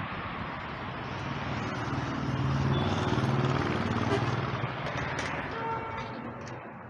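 A road vehicle passing, its engine hum and tyre noise growing louder to a peak about halfway through and then fading away.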